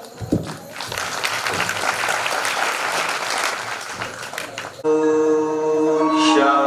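Audience applauding for about four and a half seconds, then music with long held notes starts suddenly, louder than the clapping.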